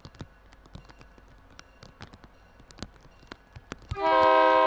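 An MBTA commuter train's multi-chime air horn sounds a loud chord of several steady tones about four seconds in, after light irregular clicking as the train approaches.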